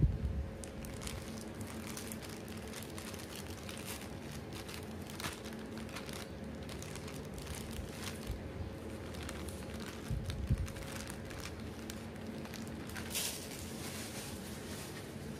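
Thin plastic bag crinkling on and off as it is handled and opened, with a low thump near the start and another about ten seconds in, over a steady low hum.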